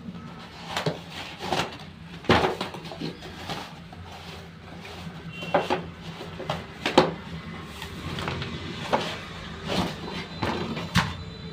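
Cardboard toy box being opened and handled: irregular knocks, scrapes and rustles of the box and its cardboard insert as the RC stunt car and its remote are taken out.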